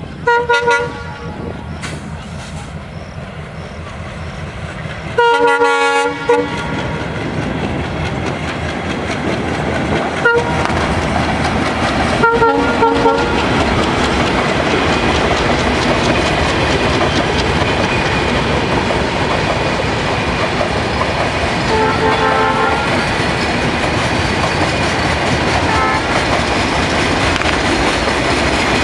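Passenger express train sounding its horn in several blasts, with a short one near the start and a long, loud one about five seconds in, then shorter ones later. Its rumble and wheel clatter on the rails build up and stay loud as it passes close by.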